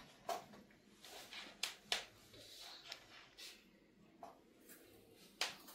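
Faint, scattered light taps and rustles, about half a dozen over a few seconds, over a faint hiss.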